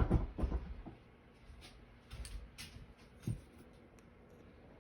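Small tool and hands working on a diecast model truck cab, prying at the mirrors: a cluster of small knocks and scrapes in the first second, then scattered light clicks and taps.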